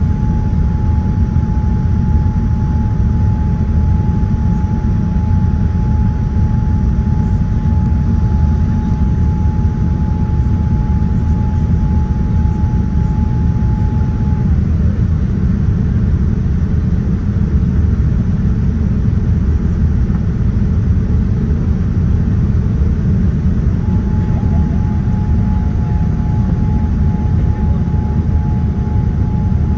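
Cabin noise of a Boeing 787-9 airliner climbing after takeoff: a steady loud rumble of the engines and airflow. A thin, steady whine runs over it, drops away about halfway through, and comes back near the end with a second whine beside it.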